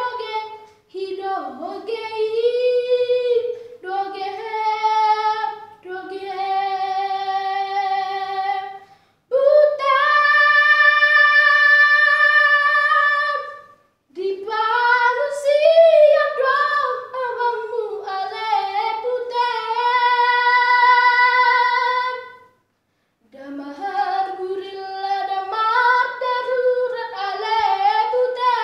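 A boy singing solo without accompaniment, in phrases with long held notes and short silent breaths between them.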